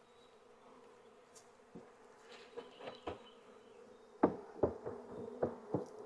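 Honeybees buzzing steadily around an open hive. From about two seconds in come scattered knocks, with a quick run of about five sharp knocks in the last two seconds.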